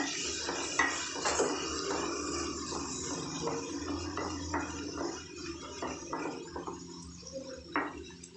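A spatula stirring and scraping chopped onions and tomatoes around a non-stick kadai, with irregular knocks and scrapes against the pan over a steady sizzle of the frying. It gets somewhat quieter in the second half.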